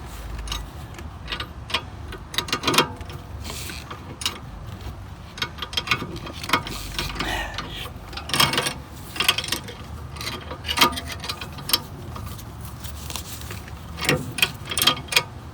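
Irregular metallic clicks, clinks and knocks of a hand wrench being worked on a rear brake caliper bolt, with scattered handling knocks.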